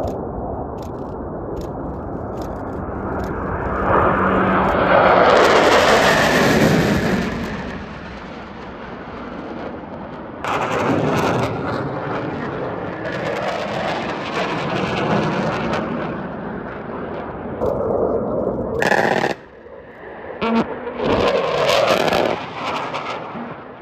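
Fighter jet engines passing low: a broad roar that swells to its loudest about five seconds in and fades, then further jet passes, with the sound jumping abruptly twice.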